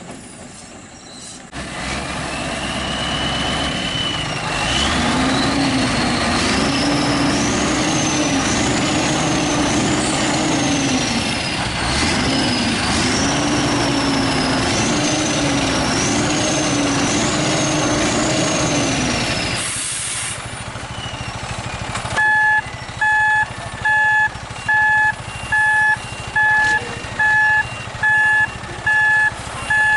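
Heavy diesel truck engine revving hard under load, its pitch rising and dipping over and over with a high turbo whistle above it, then dropping away. A short hiss of air follows. Then a vehicle's reversing alarm beeps steadily, about once a second.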